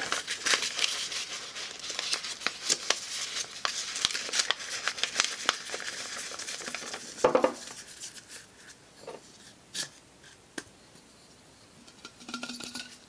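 A sheet of paper being rolled up and rustled between the hands, crinkling with many small crackles for about seven seconds. A brief voiced hum cuts in, then a few light clicks and taps as the rolled paper is handled against a glass bottle.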